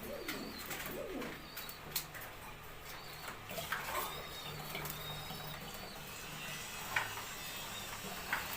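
Domestic pigeons cooing, with a few sharp clicks or knocks.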